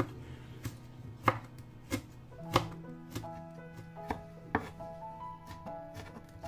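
Chinese cleaver slicing a red chili into strips on a wooden cutting board: a sharp knock of the blade on the board about every half-second, unevenly spaced. Quiet background music plays underneath.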